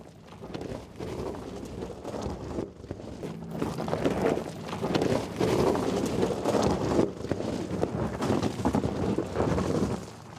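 Off-road driving noise from the electric G-Class: tyres rolling and crunching over rough, stony ground with rumble and wind buffeting the microphone, growing louder about four seconds in.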